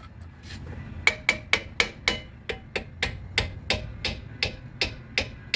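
Quick, light metallic taps on the rear brake pad and caliper hardware, about four a second, starting about a second in, each with a short ring.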